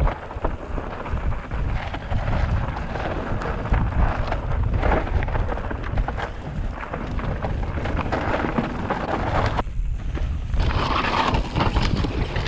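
Mountain bike riding fast down a rough stony singletrack, heard from a camera on the bike or rider: a steady low rumble of tyres over rock and dirt, with constant clicks and rattles from the bike being shaken. There is a brief lull about ten seconds in.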